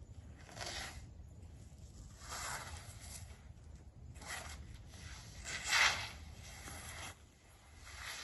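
Clothing and body scraping and rubbing against the inside of a concrete tunnel: about four separate hissing strokes a second or more apart, the loudest near six seconds in.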